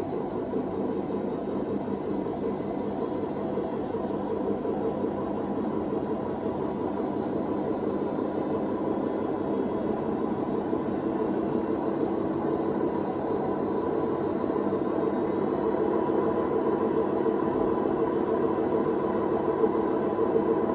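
Hoover VHD 9163 ZI washing machine spinning, with a loud, steady grinding rumble from its drum bearings, which the owner says are broken. It grows slightly louder over the stretch.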